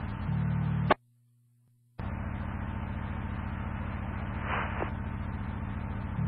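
Fire-dispatch two-way radio channel from a scanner feed: an open transmission of static hiss and low buzzing hum with no words cuts off with a squelch click about a second in. After about a second of dead air, the channel keys up again with the same hiss and hum.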